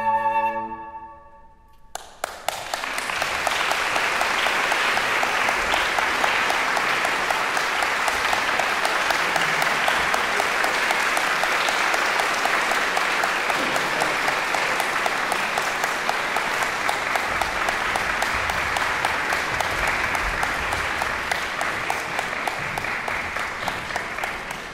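The last chord of two flutes and piano dies away in the hall. About two seconds in, the audience breaks into steady applause.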